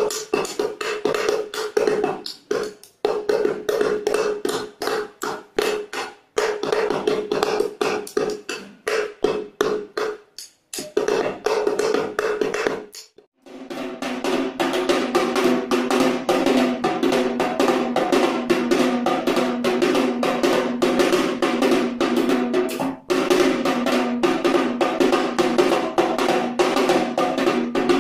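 A small child beats a small wooden drum with a stick in quick, uneven strokes. About thirteen seconds in, the sound breaks off and a second drum with a deeper ring takes over, struck in a denser, faster run.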